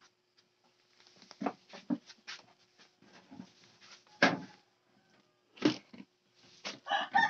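A few short, sharp knocks and taps, the loudest about four seconds in, then a rooster starts crowing near the end.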